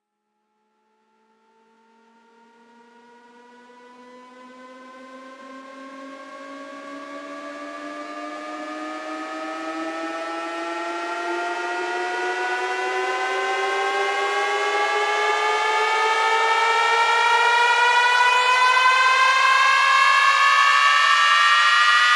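Electronic riser sweep from a DJ sound-check remix: one buzzy tone with many overtones fades in from silence and climbs slowly and steadily in pitch while growing louder over about twenty seconds.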